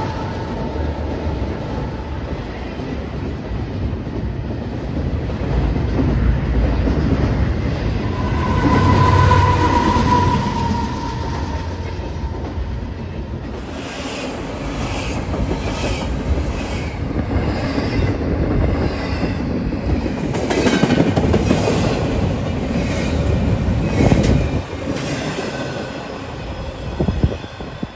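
Canadian Pacific freight train's autorack and intermodal cars rolling past, a steady rumble of wheels on rail. A brief steady whine comes about nine seconds in, and through the second half the wheels click rhythmically over the rail joints.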